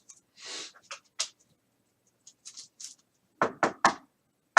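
Trading cards being handled: a short sliding rustle about half a second in, a couple of light clicks, then three sharp taps in quick succession near the end.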